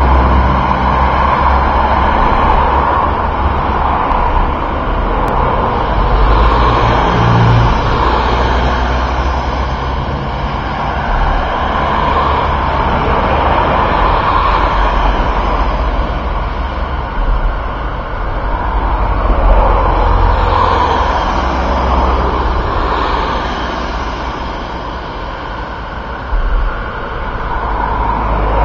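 Steady outdoor vehicle noise: a low rumble under a hiss that swells and fades every few seconds.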